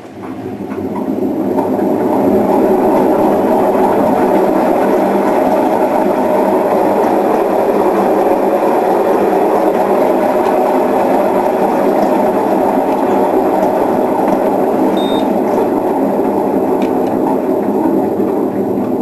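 Privileg Ergonomic 1600 S washing machine running with a loud, rough, steady rumble from its drum, which swells over about two seconds and then holds; the drum bearing is badly damaged.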